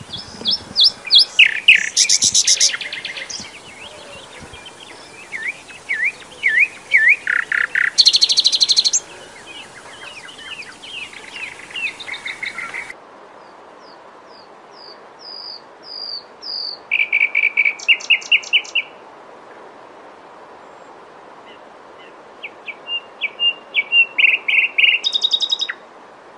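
A small brown warbler singing in fast, varied phrases of quick chattering and whistled notes, each phrase a few seconds long with short pauses between. About halfway through the recording changes, and the later phrases include runs of rapidly repeated notes.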